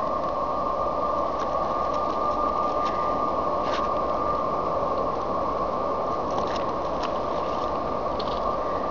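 Freight train rolling by close at hand: steady wheel-and-rail noise with a constant high whine running through it and a few light clicks.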